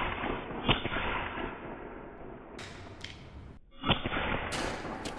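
Two sharp shots from an Evanix Viper .30 caliber semi-automatic PCP air pistol, about three seconds apart, each followed by a fading tail.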